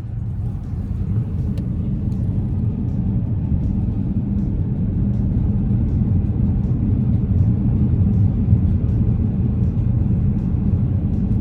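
Cabin noise of a 2018 Dodge Challenger AWD's V6 and tyres cruising at highway speed: a steady low rumble that slowly grows louder, with faint regular ticks.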